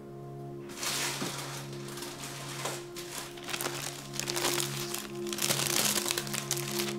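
Crinkling of deli paper being peeled back and handled, starting about a second in, over background music with steady held notes.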